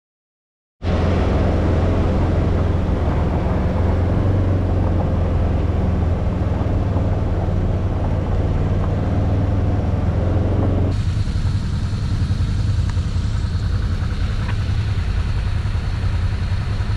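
Off-road buggy (side-by-side UTV) engine running during a ride, with a steady low drone and rushing noise on an action-camera microphone. It starts abruptly about a second in. About eleven seconds in, the rushing eases and a thin high whine comes through.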